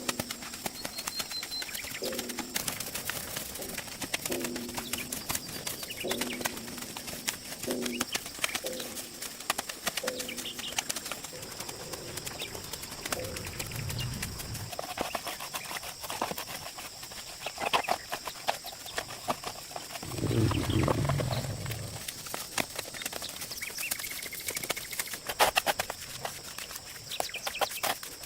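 Birds cooing, a series of low repeated notes through the first several seconds, over a steady high hiss. Two low rumbles come about thirteen and twenty seconds in, the second the louder.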